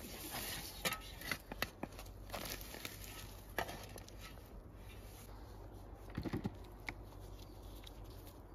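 Shovel digging potatoes out of loose soil, with the dry stems and roots of the potato plants rustling and snapping. Several sharp crackles come in the first few seconds, followed by a short run of dull knocks about six seconds in.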